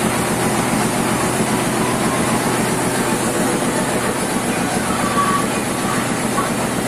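A small rice mill's husking and polishing machines running, belt-driven from a stationary engine: a steady mechanical rattle over a constant low drone.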